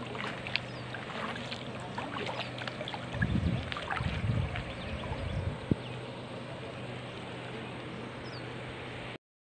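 Outdoor riverbank ambience: a steady hiss with scattered faint chirps and ticks, and low rumbling gusts of wind on the microphone about three to four and a half seconds in. A single sharp click comes a little later, and the sound cuts off suddenly near the end.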